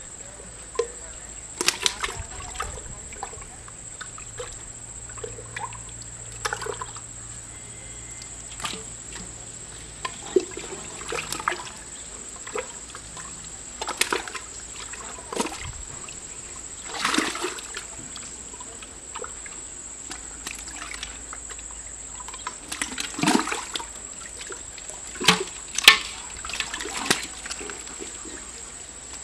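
Hands groping and digging in wet mud and shallow water inside a fish burrow: irregular squelches and small splashes, a dozen or so louder ones spread through.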